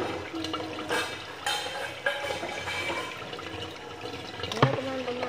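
Water running steadily from a garden hose and splashing onto a tiled floor, with a few short knocks, the loudest near the end.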